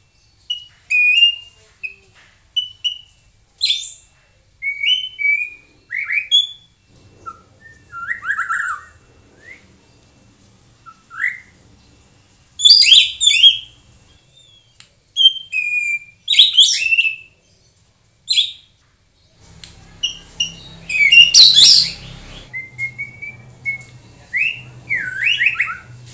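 White-rumped shama singing: a string of short, varied whistled phrases that slide up and down, separated by brief pauses, with louder clusters of notes about halfway through and again a few seconds before the end.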